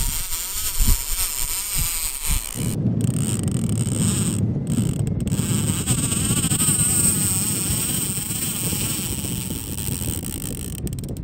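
Multiplier fishing reel buzzing while a hooked tope is played on a bent rod. Wind rumbles on the microphone from about two and a half seconds in.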